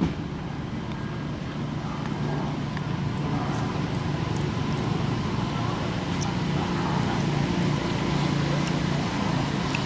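Motor vehicle engine running steadily, a low hum that gets louder about two to three seconds in and stays up.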